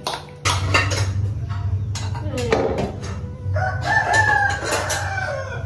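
A rooster crowing: one long call that holds its pitch and then falls away, over a steady low hum. A few knocks and clatters come near the start.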